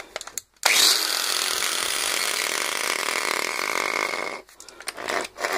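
A Bravo 125 mm angle grinder switches on suddenly and runs at full speed with a steady high whine and a rattle for about four seconds, then is switched off. The rattle comes from the disintegrated rear motor bearing: its balls have fallen out and rattle loose in the housing.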